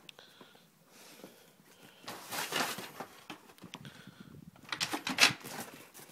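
A Doberman's paws and claws scrabbling and clattering on a wooden garden table, in two bouts. The first is a rough scuffle; the second, a little before the end, is a run of sharp knocks and clicks and is the louder.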